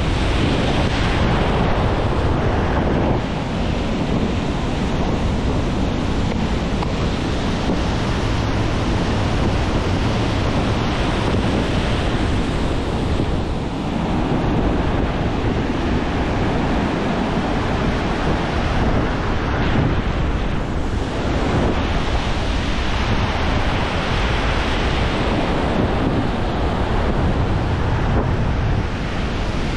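Ocean surf breaking and foam washing through shallow water in a steady rush, with wind blowing across the microphone.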